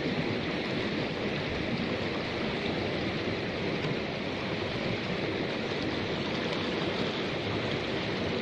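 Fast-flowing muddy river water rushing steadily past the concrete bank.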